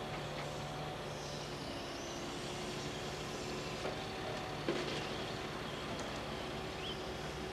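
Scania R440 timber truck's 13-litre straight-six engine running steadily while it powers the V-Kran crane's hydraulics. One sharp knock of wood about two-thirds of the way through as the grapple sets logs down on the trailer.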